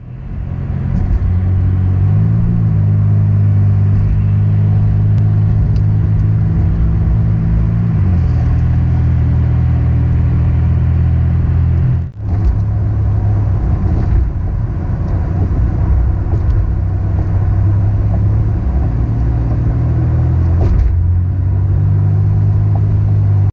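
Car driving on a highway, heard from inside the cabin: a steady drone of engine and tyres on the road. The engine note steps up about two seconds in and drops back about eight seconds in, and the sound breaks off for a moment about halfway through.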